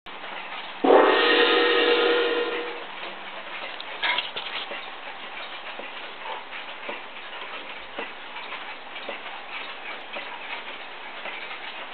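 Waterbury weight-driven wall clock sounding a single strike about a second in, which rings out over about two seconds. After it the pendulum movement ticks steadily.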